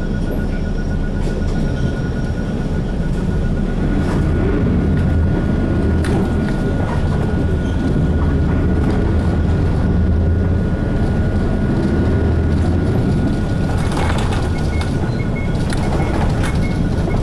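Interior running sound of an Isuzu KC-LV380N one-step city bus under way: a steady low engine and road drone. A faint, constant high whine runs over it, with a few rattles from the body along the way.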